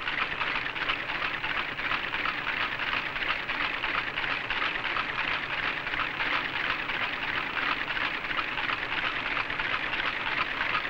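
Hot-metal typecasting machine running, a fast, dense, unbroken clatter as it casts individual letters and sets them out in lines of type.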